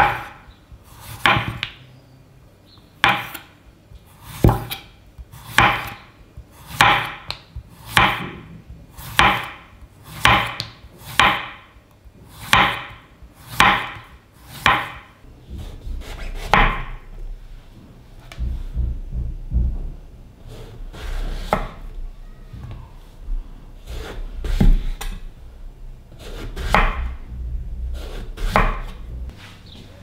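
Kitchen knife slicing a zucchini into rounds on a wooden cutting board, each cut ending in a sharp knock on the board, about one a second. Over the second half it is slower, sparser cuts through an aubergine, with a low rumble between them.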